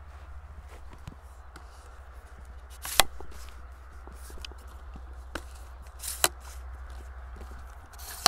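Footsteps and handling noise from a camera on a tripod being carried through a wheat field: scattered small clicks and rustles, with a sharp knock about three seconds in, another near six seconds and one at the end, over a steady low rumble.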